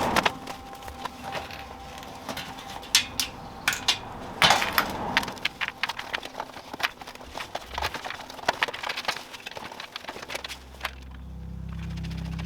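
Irregular sharp clicks and knocks of hand tools and bicycle parts being handled. A low steady hum comes in near the end.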